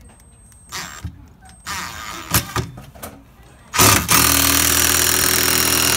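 A cordless power driver runs steadily for about two seconds, starting about four seconds in, as it drives a long screw through the security screen door's frame into the door trim. Light handling knocks come before it as the screw is lined up.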